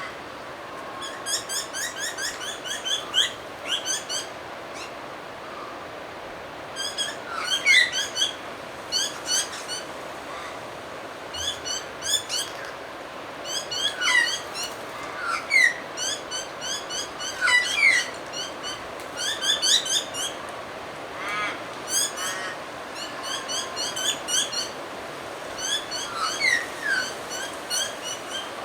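Several wild birds calling over and over in short, rapid runs of sharp high chirps, with occasional lower whistled notes between them.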